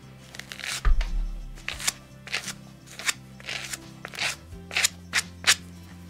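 Hand flicker brush striking and dragging through the tip of a wool lock on a leather lap pad, short scratchy brush strokes about twice a second, flicking out the neps and short bits at the lock's end. Soft background music plays underneath.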